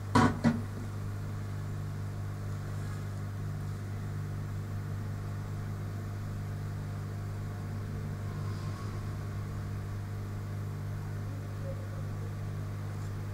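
Steady low electrical hum, with two sharp clicks about half a second apart right at the start.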